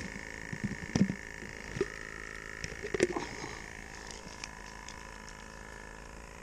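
A few sharp knocks and clatters of things being handled, the loudest about a second in and about three seconds in, over a steady hum.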